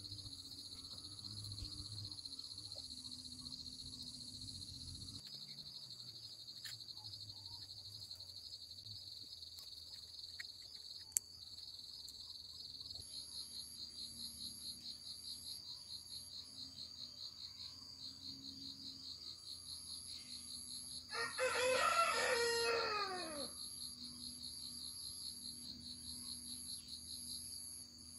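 A rooster crows once, a long call of about two seconds starting some 21 seconds in. Under it insects chirr steadily, a high pulsing of about three beats a second through the second half. One sharp click is heard near the middle.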